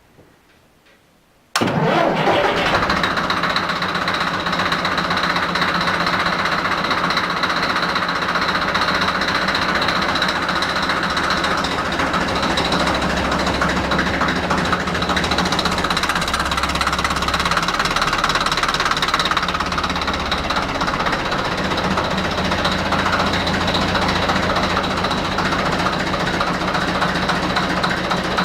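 Deutz F4L514 air-cooled four-cylinder diesel engine running steadily with a diesel clatter and a high whine over it. It comes in suddenly about a second and a half in.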